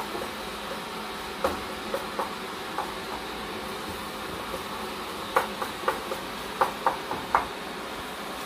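Wooden spatula stirring curry in a stainless steel pot, knocking against the pot's side in sharp clicks: a few scattered, then a quick cluster from about five to seven and a half seconds in, over a steady hiss.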